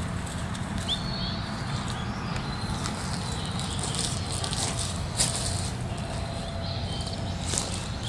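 Footsteps crackling on dry leaf litter over a steady low rumble, with a few faint high chirps.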